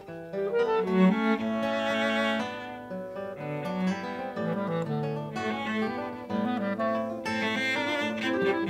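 Chamber trio of clarinet, bowed cello and classical guitar playing a composed piece, with sustained melodic lines over plucked guitar notes.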